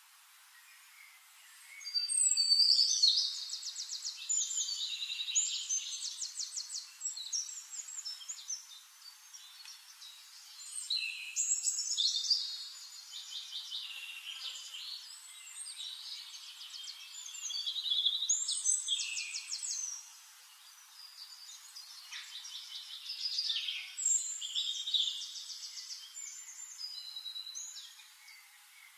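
A songbird singing: four long, complex phrases of rapid high trills and chirps, each lasting a few seconds, with quieter pauses between them.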